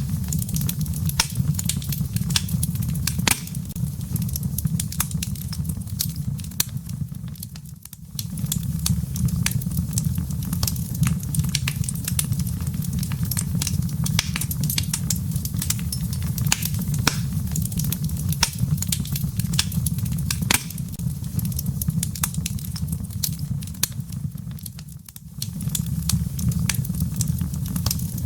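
Wood fire crackling in a fireplace: frequent sharp pops and snaps over a steady low rumble of burning logs, with the sound dipping briefly twice.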